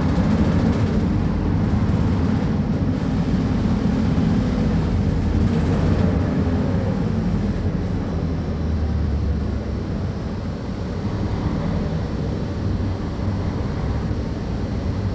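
Mercedes-Benz O500UA articulated bus's diesel engine running steadily and loud, deep and low-pitched. About halfway through, a faint whine falls in pitch and the sound eases a little before steadying again.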